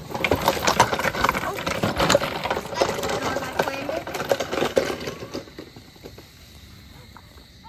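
Rapid clattering knocks and rustling of someone climbing over the wooden boards of a treehouse with the camera in hand. It dies down to quiet about five and a half seconds in.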